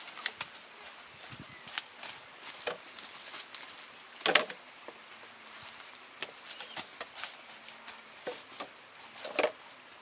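Scattered light knocks and clicks of yellow bamboo poles being handled and shifted on the ground, with one louder hollow knock about four seconds in and another near the end.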